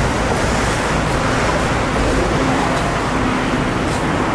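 Steady road traffic noise: an even wash of engine and tyre sound with no single vehicle standing out.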